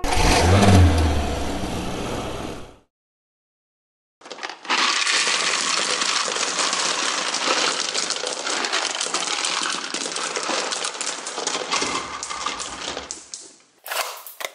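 Small plastic beads pouring out of a plastic toy trailer onto a heap of beads: a dense, steady rattling clatter of many tiny clicks lasting about nine seconds. It follows a louder, shorter rushing sound with a low rumble at the start that ends about three seconds in.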